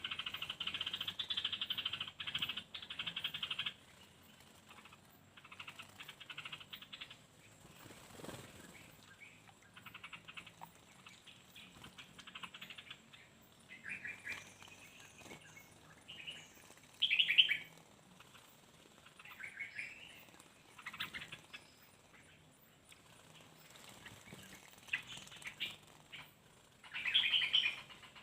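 Small birds bathing: bouts of rapid wing-fluttering and splashing in water, the longest in the first few seconds and another near the end, with short chirps in between.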